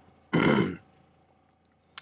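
A man's brief grunt-like vocal sound, about half a second long, near the start, followed by a single click at the very end.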